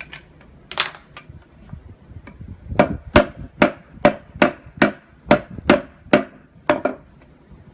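Hammer blows knocking at stubborn brass connectors on a small appliance switch. There is a single strike, then a steady run of about nine sharp hits at roughly two a second, and a final quick pair.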